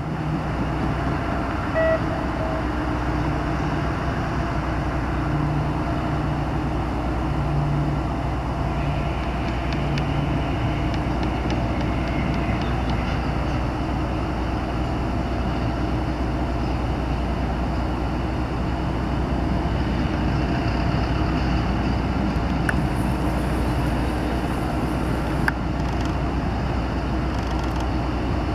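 Steady low mechanical hum with a constant outdoor rumble, broken by two short knocks, one about two seconds in and one near the end.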